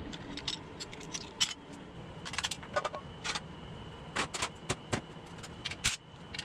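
Irregular metallic clinks and clicks of tools and engine parts being handled while one side of an air-cooled VW engine is taken apart.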